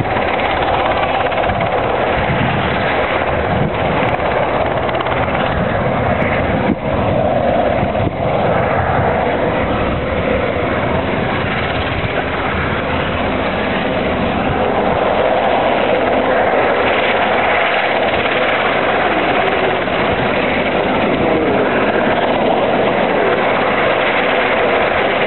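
Westland Sea King helicopter hovering, its rotors and twin turboshaft engines giving a loud, steady noise.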